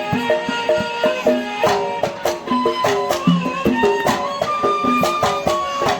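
Instrumental passage of a Kuwaiti sawt song: a plucked-string melody of short decaying notes over steady hand-drum beats, with a higher held melodic line entering around the middle.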